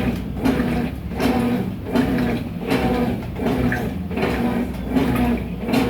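Consul CWS12 washing machine agitating a load of laundry, its motor humming in a steady back-and-forth rhythm that swells and fades about every 0.7 seconds as the agitator reverses.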